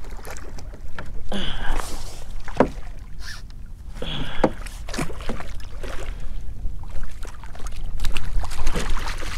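Hooked redfish (red drum) thrashing and splashing at the water's surface beside a kayak as it is played to the net, in repeated splashes.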